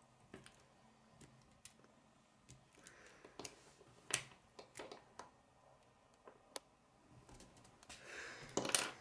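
Plastic K'nex rods and connectors clicking as they are handled and snapped together: scattered sharp clicks, the loudest about four seconds in, with a longer rustle of handling near the end.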